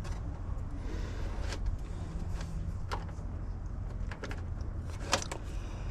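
Light clicks and taps of hands and tools handling parts inside an air conditioner's outdoor condenser unit, a few scattered knocks over a steady low rumble.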